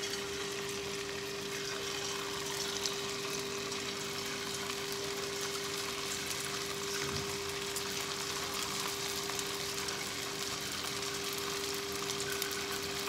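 Strands of ground-rice paste pressed from a bhujia maker into hot oil in a kadhai, sizzling and crackling steadily as they deep-fry. A steady low hum runs underneath.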